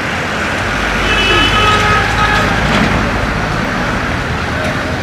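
Heavy street traffic with engines running and vehicle horns honking; a horn sounds from about a second in for a second or so.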